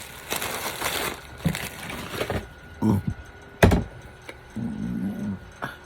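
Crinkling and crunching of tortilla chips and their bag, dense for the first couple of seconds. A sharp knock about three and a half seconds in is the loudest sound, and a short hummed vocal sound follows near the end.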